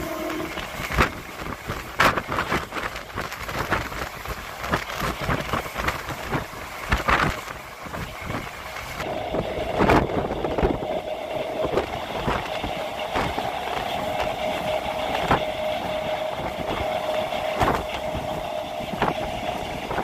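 MEMU electric train running along the line, heard from its open doorway: a rushing, rumbling noise with sharp clacks from the wheels on the track every couple of seconds. A steady hum joins about nine seconds in.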